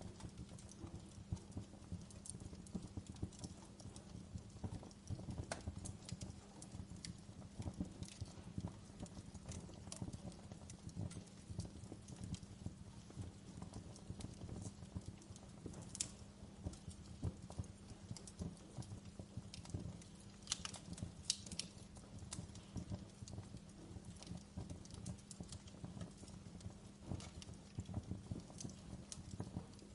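Wood fire in a fireplace crackling: dense, irregular small pops and snaps, with a few sharper pops past the halfway point, over a low steady hum.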